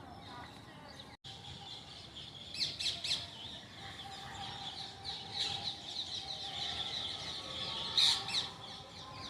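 Parrot calling in rapid high chirps and squawks, with louder bursts about two and a half seconds in and again near the end.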